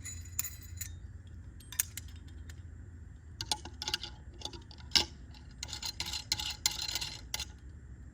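Small metal hardware clicking and clinking as steel cable and its fittings are handled: scattered sharp ticks, busiest in the second half, with one louder click about five seconds in.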